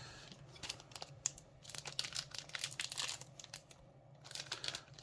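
Foil booster-pack wrapper being crinkled and torn open by hand, an irregular crackling with a few sharper tears.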